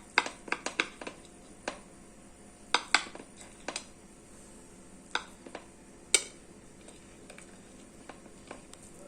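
Metal utensil clinking and tapping against the baking dish while a slice of basbousa cake is cut and lifted out: irregular sharp clinks, clustered in the first second and again around three and six seconds in.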